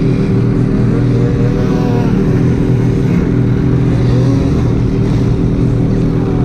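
Snowmobile engine running steadily close by, with faint brief rises in pitch about two and four seconds in.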